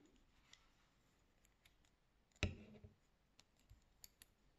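Faint, scattered clicks and light taps from crocheting cotton yarn onto a wooden bag ring with a crochet hook. The hook and hands knock on the ring; one sharper knock comes about two and a half seconds in.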